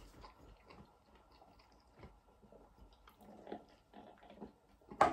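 Chewing and mouth sounds of a man eating, with small clicks. About three seconds in comes a sip through a drinking straw from a paper cup, and a single sharp knock near the end.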